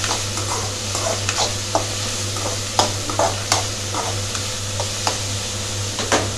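Chopped vegetables sizzling in hot oil in a metal kadai while a spoon stirs them, scraping and knocking irregularly against the pan.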